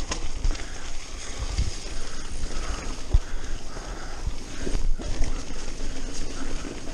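Mountain bike riding down a dirt trail: tyres rolling over the dirt with irregular low thumps and rattles as the bike hits bumps, one sharper knock about three seconds in.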